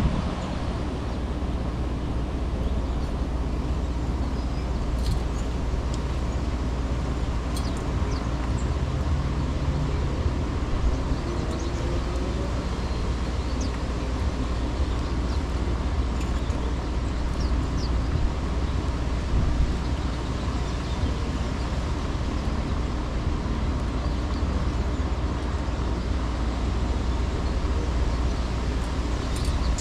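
Outdoor city ambience on a windy day: a steady low rumble of wind and distant traffic, with a few faint, short bird chirps.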